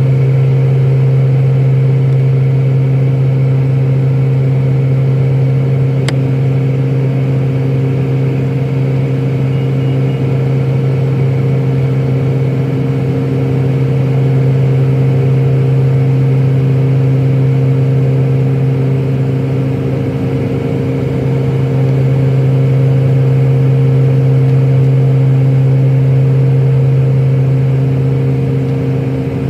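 Steady drone of a turboprop airliner's engines and propellers heard inside the cabin during the climb, a low even hum with higher overtones, with a single faint click about six seconds in.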